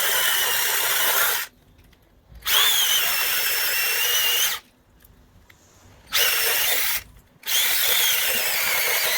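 Small electric mini chainsaw running at a high-pitched whine while cutting bark off a log, its pitch wavering under load. It stops and starts again three times.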